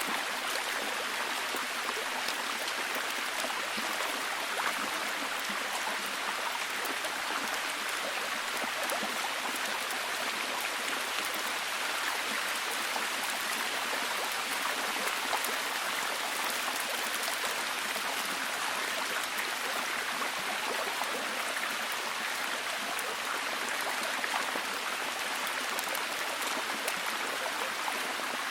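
Steady heavy rain: an even hiss of countless small drops falling.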